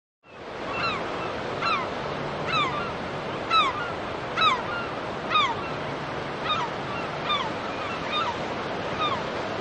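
Sea surf washing steadily, with a gull calling over it again and again, a short falling cry about once a second.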